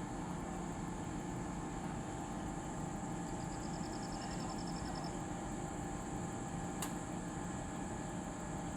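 Steady drone of an XCMG 500-tonne crane's engine running. A short, fast run of high ticks about three seconds in, and a single sharp click near the end.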